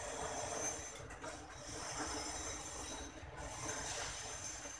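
Faint background noise with a hiss, swelling and fading a little.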